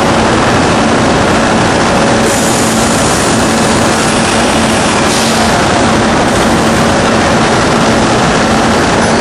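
Bridge-type machining center running: loud, steady machine noise with a constant low hum, and the hiss rising briefly a little after two seconds in and again about five seconds in.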